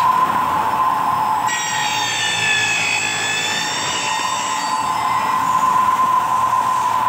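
Horizontal milling machine running with a steady whine. About a second and a half in, the cutter bites into a metal T-section and squeals with several high, slightly wavering tones for about three and a half seconds before the cut ends and the steady running continues.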